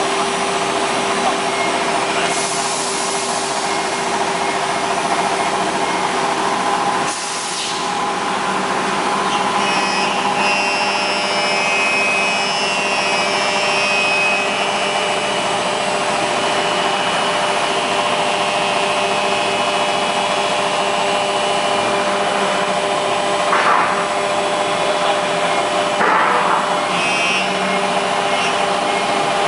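CNC router machining an aluminium and glass-fibre composite panel: a continuous grinding cutting noise over a steady spindle whine. It dips briefly about seven seconds in and has short louder moments near the end.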